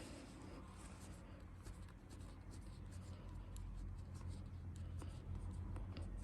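Pedicure blade scraping and paring thick, hardened callus on a cracked sole in many short, faint strokes, over a low steady hum. The skin is still hard even after a half-hour soak.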